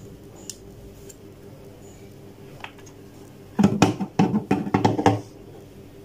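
A plug-in power adapter and its coiled cord are handled, making a rapid cluster of plastic knocks and rustles for about a second and a half after the middle. A few faint clicks come before it.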